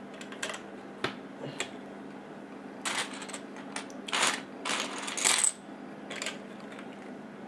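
Plastic Lego bricks clicking and clattering as a hand rummages through a loose pile of pieces. There are a few single clicks at first, then several short bursts of rattling from about three seconds in, over a faint steady low hum.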